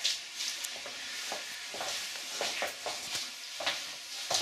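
Rope rustling and scraping as it is handled, a run of short rustles and scrapes.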